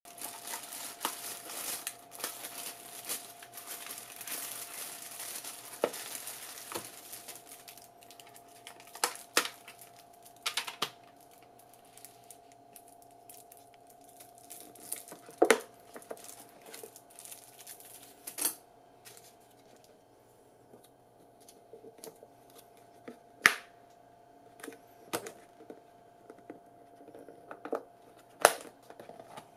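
Thin plastic carrier bag crinkling and rustling for about the first eight seconds, then scattered sharp clicks and taps as a paper takeout box and a plastic bowl lid are handled. A faint steady hum runs underneath.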